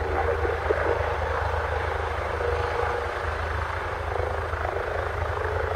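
Eurocopter EC135 twin-turbine helicopter in a low hover over the ground: steady turbine and rotor noise with a pulsing low rotor rumble underneath.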